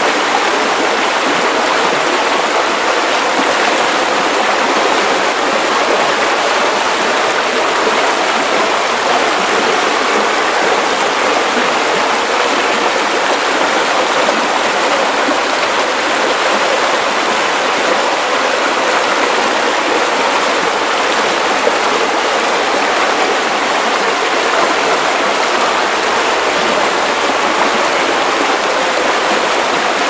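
River water rushing over rocks, a steady, unbroken rush with little low rumble.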